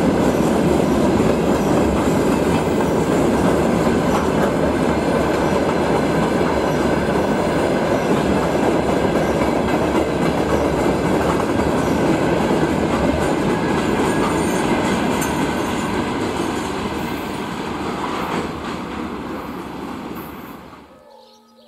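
Open-top freight wagons of a passing freight train rolling by close at hand: a steady, loud noise of wheels on rails. It dies away as the last wagons recede near the end, then cuts off just before the end.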